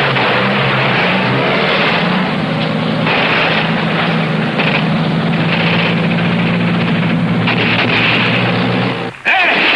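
Engines of a column of WWII jeeps running steadily as they drive over rough ground, a continuous low drone that cuts off abruptly near the end.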